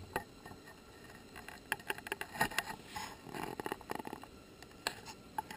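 Faint, scattered light clicks and rustles, typical of a handheld camera being handled as it pans.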